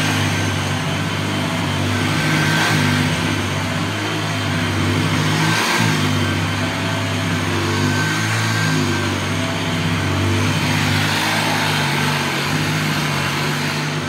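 Hoover Junior U1012 upright vacuum cleaner running steadily, its motor hum swelling slightly every few seconds.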